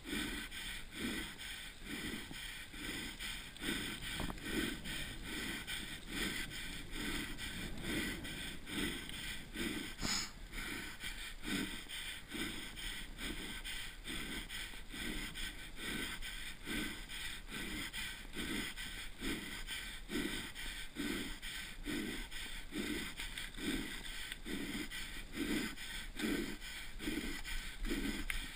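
A downhill mountain-bike racer's heavy, laboured breathing close to a helmet-mounted microphone, about three breaths every two seconds, over a steady hiss of wind and tyres on concrete.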